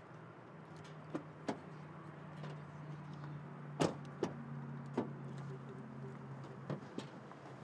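A steady low engine hum like an idling vehicle, with scattered sharp clicks and knocks, the loudest about four seconds in.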